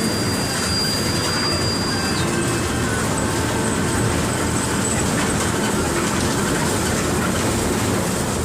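Mercedes-Benz OF 1721 BlueTec 5 city bus (Caio Apache Vip IV body) running steadily: a diesel engine drone mixed with rattle and road noise. A thin high whine holds for about the first two seconds, then drops away.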